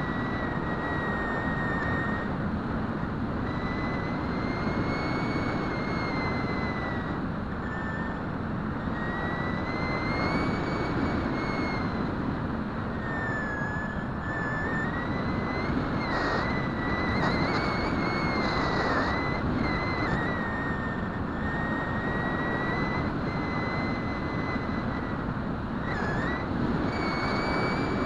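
Bixler RC plane's electric pusher motor whining steadily, its pitch drifting gently up and down with the throttle. Heavy wind rush over the onboard camera's microphone runs under it.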